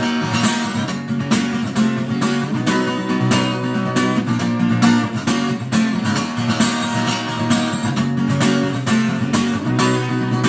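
Acoustic guitar strummed in a steady, even rhythm, an instrumental passage of a song with no singing.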